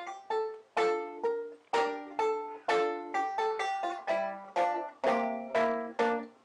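Banjo music: quick plucked notes, each ringing and fading, in a steady picking rhythm.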